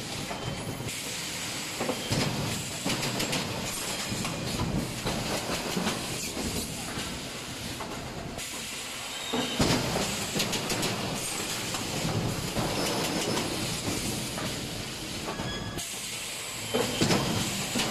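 3D EPS wire-mesh panel machine running: continuous mechanical clattering with pneumatic hissing, and louder clanks about ten seconds in and again near the end.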